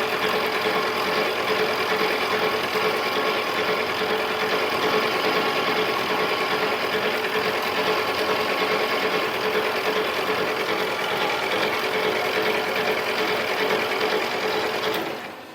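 Mini lathe running with a steady whine while it turns and refaces a 6061 aluminum part; it shuts off about a second before the end.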